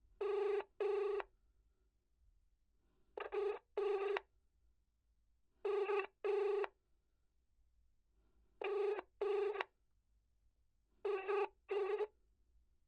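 Telephone ringing in a double-ring pattern: five short 'ring-ring' pairs, each pair a little under 3 s after the last, with silence between.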